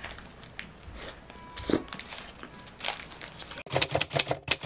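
Sandwich being eaten out of a paper wrapper: soft rustling of the paper and a couple of crunching bites. About three and a half seconds in, a quick run of sharp crinkling clicks starts.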